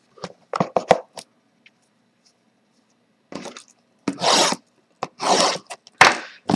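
Hands rubbing and scraping on a shrink-wrapped cardboard hobby box of trading cards: a few light clicks near the start, then four short scraping strokes of about half a second each in the second half.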